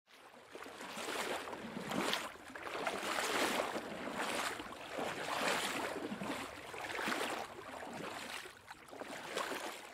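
Gentle water lapping at a shore, swelling and fading about once a second.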